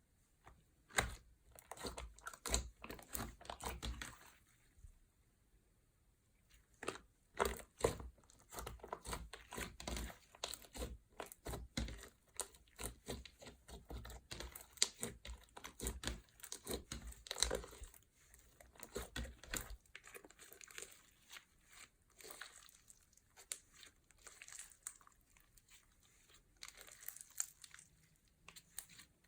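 Plastic bags of slime being crinkled and squeezed, a dense run of irregular crackles and clicks. There is a pause of about two seconds around five seconds in, and the crackling is softer after about twenty seconds.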